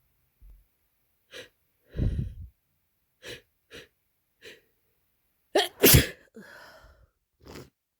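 A person with a heavy, congested head cold sneezing, with short sniffles and breath hitches between; the loudest sneeze comes about six seconds in.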